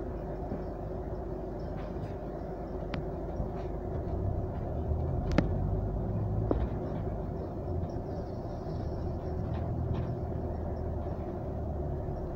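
Interior noise of a moving bus: a steady low engine and road rumble that grows heavier from about four to seven seconds in. A few sharp clicks or rattles come through, the loudest about five seconds in.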